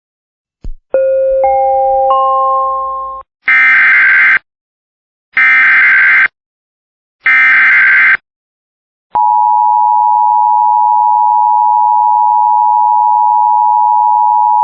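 Start of an Emergency Alert System alert: a click and a rising three-note chime that fades, then the three screeching SAME digital header bursts about two seconds apart. Then the steady EAS attention tone begins and holds.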